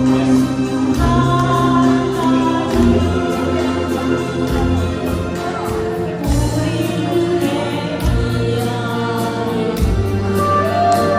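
Singing over a backing track, with a steady beat, sustained bass notes and a melodic line.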